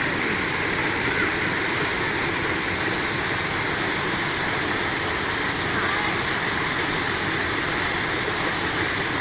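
Rushing water running steadily, as from a waterfall or fast stream, with no let-up or change.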